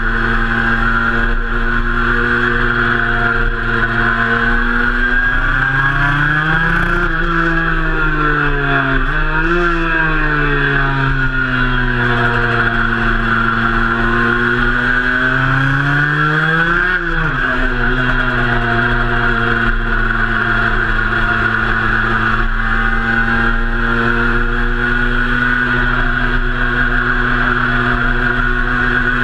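Cagiva Mito 125's two-stroke single-cylinder engine heard from onboard while riding, mostly at steady revs. In the middle its pitch rises and falls several times as the throttle is opened and closed.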